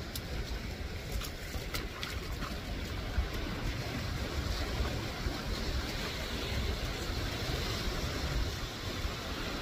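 Small sea waves washing over a rocky shore at low tide, with wind buffeting the microphone.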